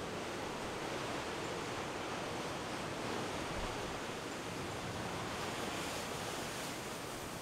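Heavy storm surf, roughly 20-foot seas, breaking over a rocky basalt shore: a steady, continuous rush of churning waves and whitewater.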